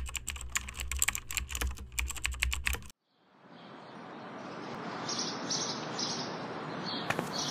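Computer keyboard typing: a quick run of key clicks over a low hum, cutting off abruptly about three seconds in. Outdoor ambience then fades in, with birds chirping over and over and a few sharp taps near the end.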